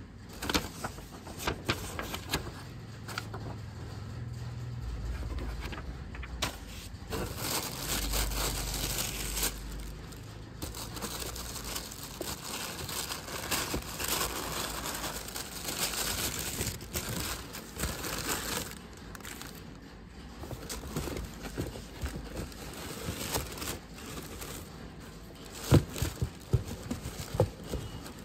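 White tissue wrapping paper crinkling and rustling in uneven bursts as hands unwrap football boots in a cardboard shoebox. A few sharp knocks come near the end.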